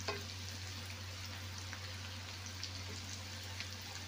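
Minced garlic and red onion sizzling in melted butter in a stainless steel pot, with scattered small pops and crackles as a wooden spoon stirs them. The spoon knocks lightly against the pot just after the start.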